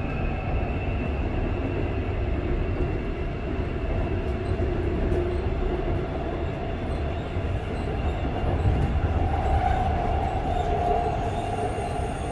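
Busan Metro Line 2 train with Alstom GTO-VVVF traction running between stations, heard from inside the car: a steady rumble of wheels on rail with faint whining tones that drift a little in pitch.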